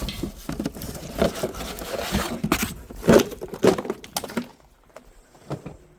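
Irregular clicking, knocking and rattling of hard parts being handled, busiest for the first four seconds or so and then thinning to a few faint clicks.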